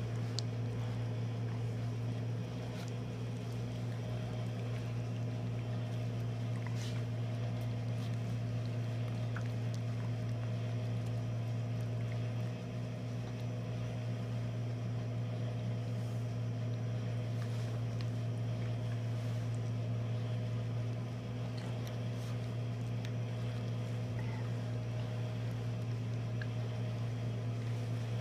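Steady low electrical hum with a few faint ticks.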